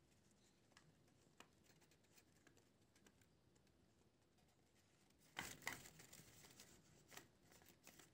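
Near silence, with a brief faint crinkle of paper about five and a half seconds in and a few faint ticks, from a folded paper dragon puppet being worked by hand.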